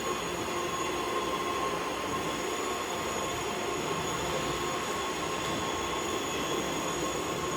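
Dyson Wash G1 wet floor cleaner running, a steady hum with a thin high whine.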